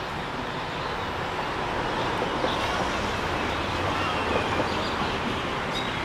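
Steady outdoor din of passing road traffic, with wind rumbling on the microphone.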